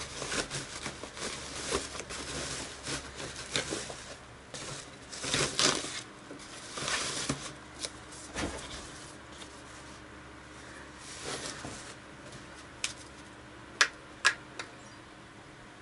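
Rustling and crinkling of a soft protective wrap being pulled off an electric guitar, with scattered handling knocks. Two sharp clicks near the end.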